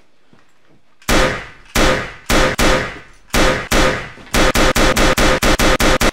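A pistol fired again and again: about six separate loud bangs, then a fast string of about nine, each with a metallic ring.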